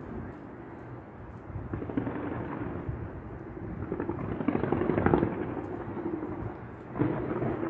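Distant fireworks display: a continuous rumble of overlapping bangs and crackling, swelling about two seconds in, loudest around five seconds, and jumping up again near the end.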